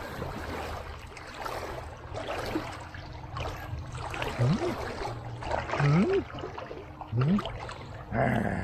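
Swimming-pool water splashing and lapping, with three short rising vocal sounds about halfway through and near the end.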